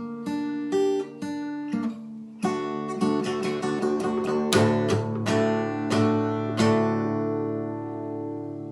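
Background music: acoustic guitar plucking and strumming a melody, ending on a chord that rings out and fades.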